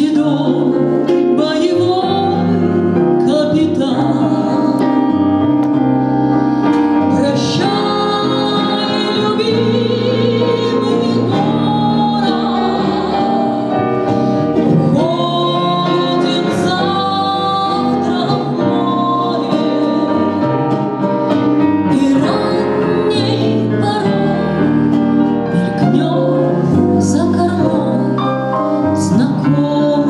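A woman sings a Russian song into a microphone, accompanied by electric keyboard, electric guitar and acoustic guitar.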